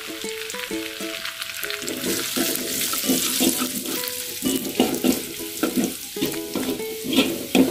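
Minced garlic sizzling in hot oil in a wok, stirred and scraped with a metal spatula in repeated strokes as it fries until fragrant and golden. Soft background music with held notes plays underneath.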